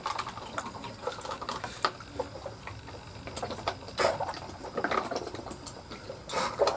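Irregular light clicks and knocks of plates, cups and utensils being handled as people eat and drink, a few louder knocks about four seconds in and near the end.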